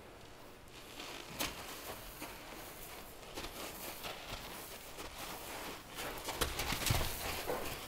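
Irregular footsteps scuffing on the ground, heaviest about six to seven seconds in.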